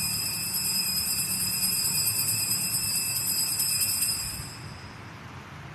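Altar bells ringing steadily at the elevation of the consecrated host, dying away about four and a half seconds in.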